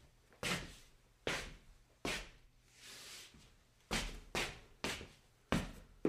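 Scuffing on stone: a run of short scrapes, about eight in six seconds, each starting sharply and trailing off, with one softer, drawn-out scrape about three seconds in.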